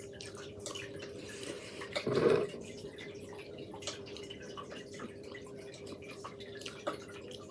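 Small wet clicks and mouth sounds of someone chewing toast, with a short louder sound about two seconds in, over a faint steady electrical hum.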